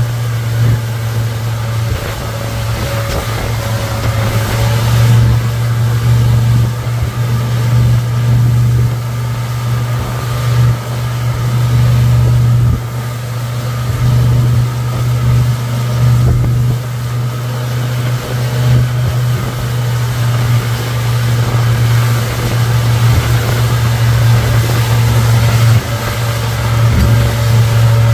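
Suzuki 150 hp four-stroke outboard motor running steadily at speed, pulling a towed load, with a constant low hum over the rush of churning wake water and wind.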